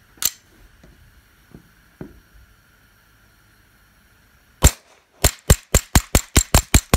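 Suppressed Smith & Wesson Victory .22 LR pistol with a SilencerCo suppressor firing Lapua Pistol King ammunition, quiet: a single shot, then nine more in quick succession at about four a second, the pistol cycling smoothly through the string. A sharp click comes just after the start.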